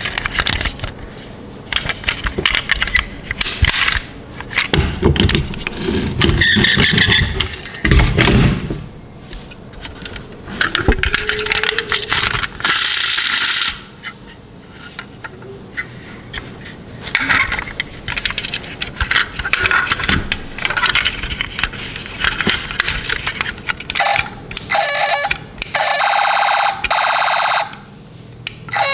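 Diecast toy vehicles handled by hand: irregular clicks, taps and scrapes of small metal and plastic parts, doors and wheels. Near the end the toy police truck's electronic sound unit gives a few short beeping tones, then one longer tone.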